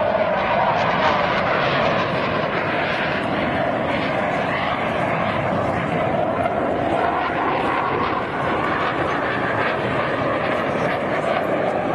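Blue Angels F/A-18 Hornet jet flying past, the steady roar of its twin jet engines shifting slowly in pitch.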